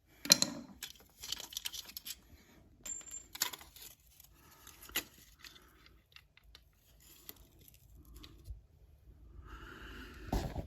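Handling noises: a string of sharp clicks and light knocks with rustling in between, the loudest click coming just after the start.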